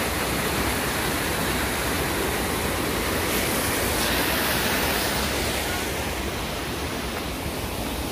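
Steady rushing of a waterfall and of white water cascading over boulders in the stream below it, a little softer in the high hiss near the end.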